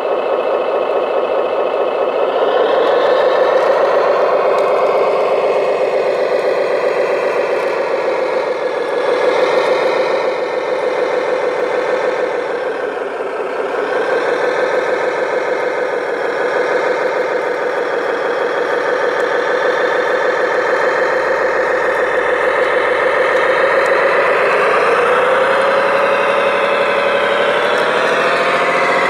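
Diesel engine sound from the sound module of an RC model Liebherr 741 crawler dozer, running steadily as the dozer drives. It revs up a little about three seconds in and rises in pitch again near the end.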